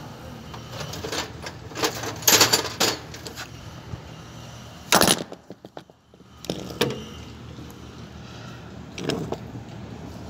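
Handling noise from a handheld phone held close to a bus: irregular knocks, clicks and rubbing over a low steady hum. The loudest is a sharp knock about five seconds in.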